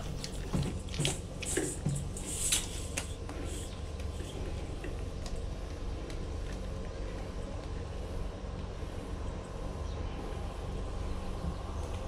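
Light clicks and clinks of small brass hose fittings being handled and joined, mostly in the first three seconds, over a steady low background rumble.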